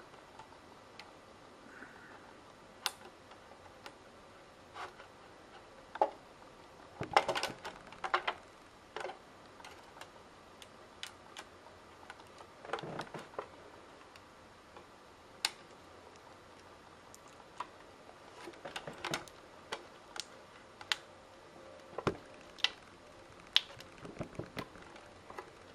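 Scattered light clicks, taps and soft rustles of small plastic parts and tape being handled while the back cover of a PS3 Slim Blu-ray drive is pressed into place, with a quick cluster of clicks a few seconds in.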